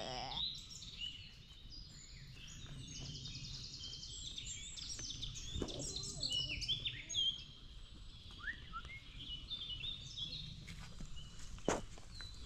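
Several woodland songbirds singing and chirping at once, with overlapping short calls and a fast trill. Two sharp knocks, about six seconds in and near the end.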